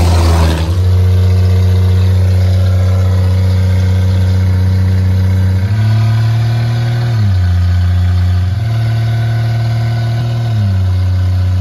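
1964 Dodge Dart wagon's engine heard from inside the cabin, running with a steady drone while cruising. Twice the engine note steps up, holds for a second or two, then drops back as the push-button automatic transmission is shifted between gears. A brief rush of noise comes at the very start.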